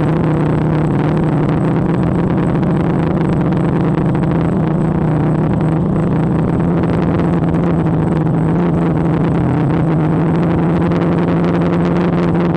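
DJI Phantom quadcopter's motors and propellers humming steadily at close range, heard from the camera it carries, over a rushing noise of propeller wash and wind.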